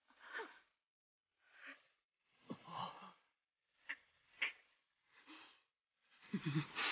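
Quiet, breathy human gasps, sighs and sniffles from distressed people, about seven short ones with silence between, a few with a low voiced whimper like a stifled sob.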